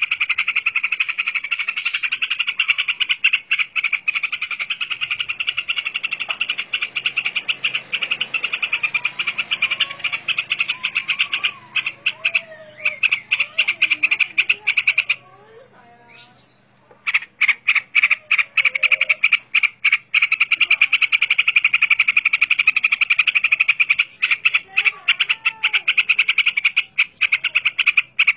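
A fast, continuous rattling trill of rapid pulses, broken off for about two seconds halfway through, with a few faint warbling bird notes beneath it.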